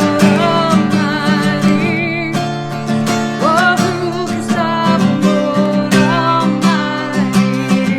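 Acoustic guitar strummed in a steady rhythm, with a voice singing held, wavering notes over it and sliding up about three and a half seconds in.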